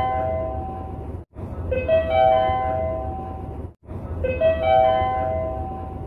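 Train service-information update chime: a four-note rising electronic chime with held notes, looping about every two and a half seconds, each pass cut by a brief dropout before it starts again. A low steady hum runs underneath.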